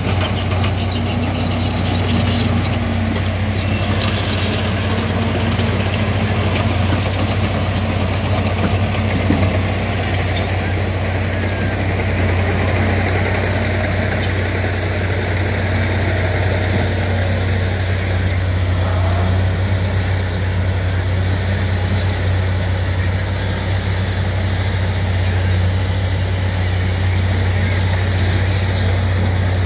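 Micropile drilling rig drilling into dolomite rock: a steady, heavy low engine drone with a continuous noisy rush of drilling over it.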